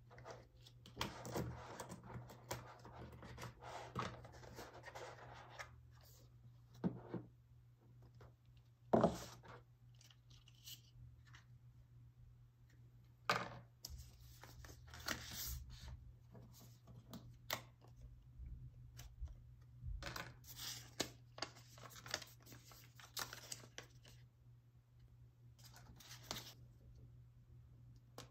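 Paper and cardboard packaging of an iPhone box being handled: soft rustling, the paper band on a USB-C to Lightning cable being torn off, and a few sharp taps as pieces are set on the table. A faint steady low hum runs underneath.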